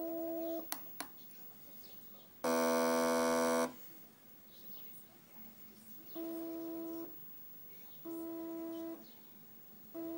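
Stepper motor from an Epson C62 inkjet printer, driven by an L293 H-bridge, moving the carriage in separate runs: a steady pitched whine during each run, five runs with pauses of one to two seconds between, the second one louder and lower-pitched. Two sharp clicks about a second in.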